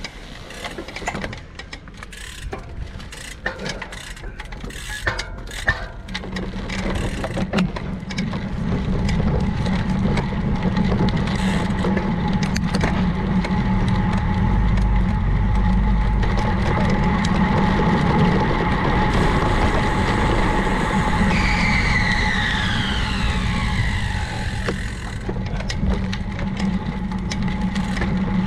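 Riding noise of a road bicycle: wind on the microphone and tyre and road rumble, with a run of clicks and crackles in the first few seconds, growing louder after about six seconds. About three-quarters of the way through, a high whine falls steadily in pitch over a couple of seconds.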